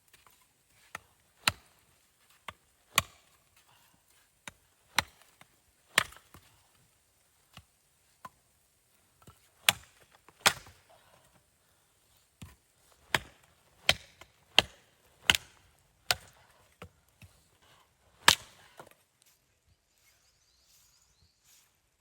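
Wood being chopped: a long, uneven series of sharp chopping blows into wood, about one a second, stopping a few seconds before the end.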